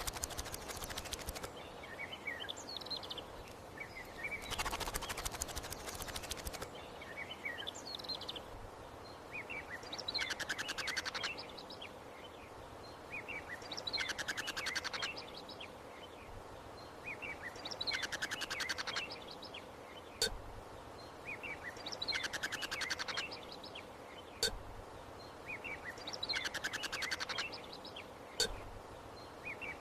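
Birds chirping, with a rapid rattling trill that comes back about every four seconds. Three single sharp clicks fall in the second half.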